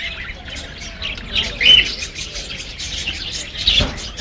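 Baby parakeet chirping: a rapid run of short, high chirps, with a louder arched call about two seconds in and another near the end.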